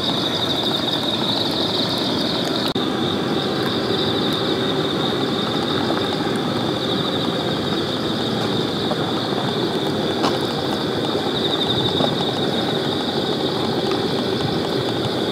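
Insects chirring steadily in a high, pulsing band over a constant low rumble like a distant engine or traffic, with no barking from the dogs.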